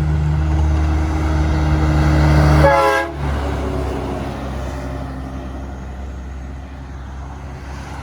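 Diesel semi-truck passing close by, its engine loud at first. About three seconds in it gives a short horn blast, and then the engine fades as the truck moves away.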